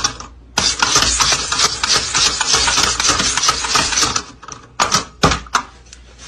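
Plastic toy worked rapidly by hand, a dense clattering run of clicks lasting about three and a half seconds, then a few separate clicks near the end.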